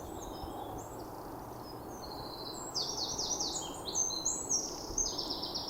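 A small songbird singing high, fast trilled phrases of quickly repeated notes, busiest in the second half, over a steady low outdoor background hum.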